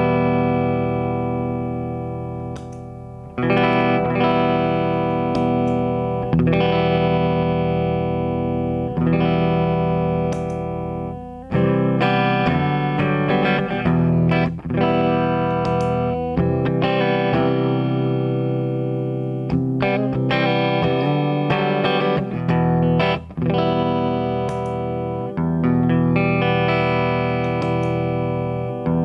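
Electric guitar played through a DIYGP 10 Minute Dirt & Boost pedal (a dirty boost with a clipping setting and a clean-boost setting) into an amplifier. Chords are struck and left to ring, a new one every two to three seconds, with a change in the chord pattern about a third of the way in.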